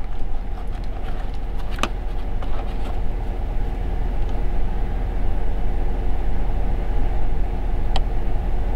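Vehicle engine idling steadily, with two sharp clicks, one about two seconds in and one near the end.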